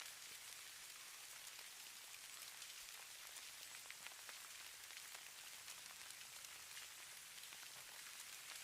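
Falling snow: a faint, steady hiss sprinkled with many tiny ticks as the flakes or grains land on a surface.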